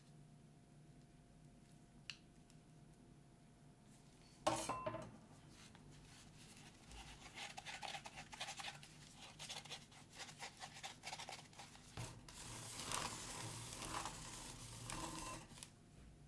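Gloved hands handling a paper cup of rolled ice cream over a steel ice-cream pan: a single sharp knock about four seconds in, then several seconds of irregular rubbing, crinkling and scraping with small clicks that stops shortly before the end.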